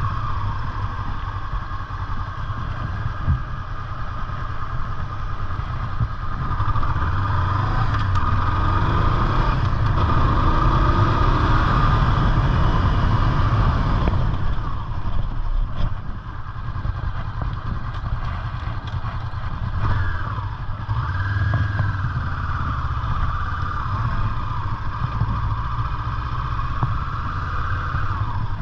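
Honda CB500F's parallel-twin engine running as the motorcycle is ridden. It gets louder and higher from about a quarter of the way in, eases off near the middle, and the revs then rise and fall a few more times.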